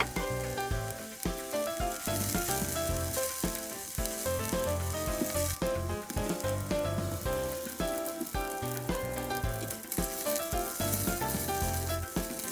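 Ham and vegetables sizzling as they stir-fry in a pan, with background music playing.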